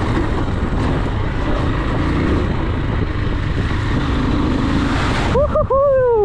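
AKT TTR 200's 197 cc single-cylinder engine running under way on a dirt track, under a heavy rush of wind on the microphone. Near the end the rush cuts off suddenly and a short pitched sound rises and then falls.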